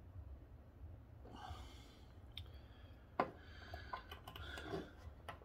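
Small clicks and ticks of a tiny screwdriver tip working against a Jeep key's roll pin as it is pushed out of its hole, with one sharper click about three seconds in. A soft breath comes about a second and a half in, over a steady low hum.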